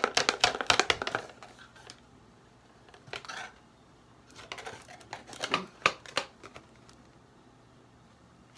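Cardboard perfume box and paper card being handled: a fast run of clicks and rattles for about the first second, then a few scattered rustles and taps.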